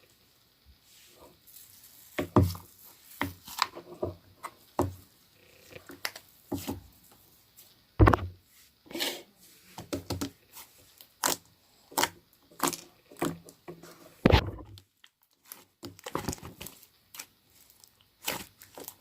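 Slime being squeezed and worked by hand: irregular sharp crackling and popping clicks, some with a soft low thud.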